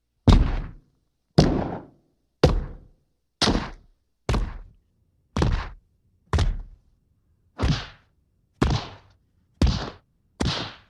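Big, rocky fight-punch sound effects: eleven separate hits about a second apart, each a sharp impact with a short fading tail and silence between.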